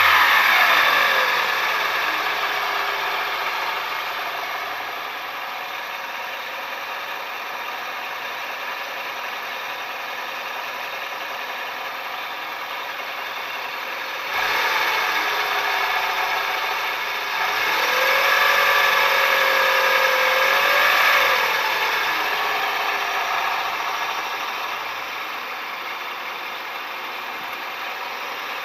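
Toyota 3S-FE four-cylinder engine of a 1999 Town Ace Noah running with a rustling noise and a whine that follows the revs. It drops back to idle near the start, holds steady, then is revved gently twice about halfway through, the whine rising and falling with the revs, before settling again. The owner presents these as faults to be repaired.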